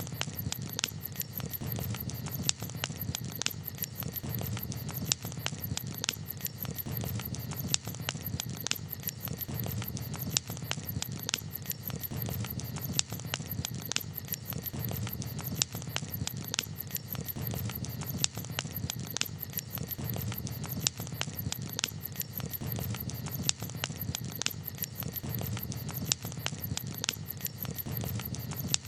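Campfire crackling: irregular sharp pops and snaps, several a second, over a steady low background.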